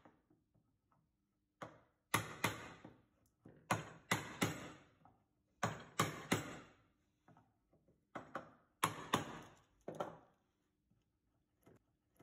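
Wooden mallet striking a mortise chisel driven into timber, chopping out a mortise. The sharp knocks come in quick groups of two or three, one group about every two seconds.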